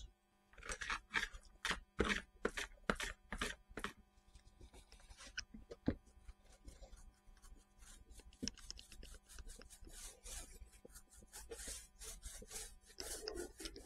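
Small paint roller worked back and forth over a wooden board, making short rubbing strokes. The strokes come about three a second for the first few seconds, then turn fainter and more irregular.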